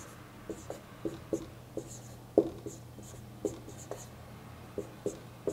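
Marker pen writing on a whiteboard: a run of short strokes and taps of the tip against the board, the loudest about two and a half seconds in, over a faint steady low hum.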